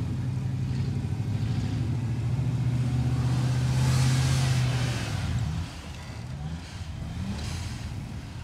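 Off-road buggy's engine held at high revs as it claws up a loose dirt climb, with a rush of noise from the tyres churning dirt around the middle. About five and a half seconds in the throttle is let off sharply, then blipped twice with short rising revs.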